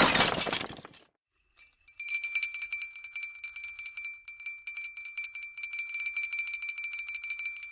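The tail of a loud crash dies away in the first second. Then, from under two seconds in, small bells jingle in a dense, steady shaking rattle with a clear ringing tone through it, and the jingling stops at the very end.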